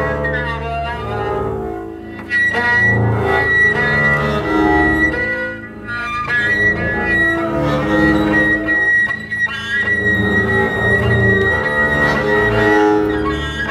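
Two double basses bowed at once in free improvisation, long overlapping sustained tones. A thin, high steady tone comes in about two seconds in and holds above them.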